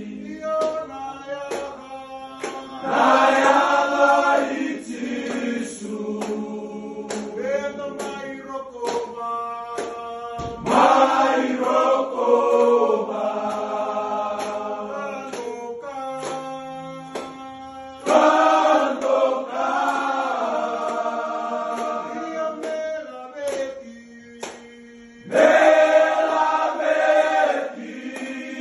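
A group of men singing together in harmony, choir-style, in long held phrases that swell in about every seven seconds and then fade to quieter sustained notes.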